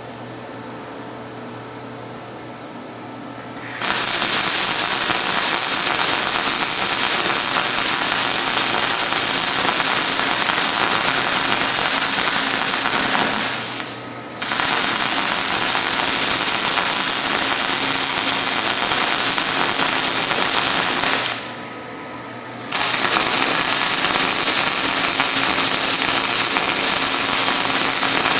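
Older, worn-out MIG wire-feed welder humming at first. Then the arc starts and runs in a loud, steady crackling sizzle as beads are laid on the rusted steel of an exhaust muffler. The arc stops twice, briefly about 14 seconds in and for a second or two around 21 seconds, then restarts.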